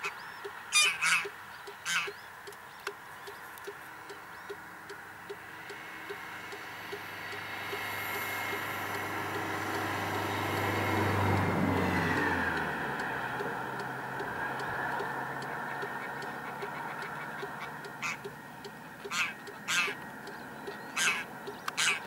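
Waterfowl honking in short calls in the first couple of seconds and again over the last few seconds. In between, a rushing hum swells and fades, loudest about eleven seconds in, its steady tone dropping in pitch as it passes.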